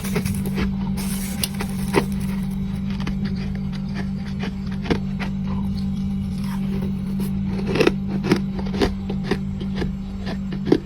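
Crunching and chewing of powdery freezer frost, in irregular sharp crunches, with a cluster of louder ones about eight seconds in. A steady low hum runs underneath.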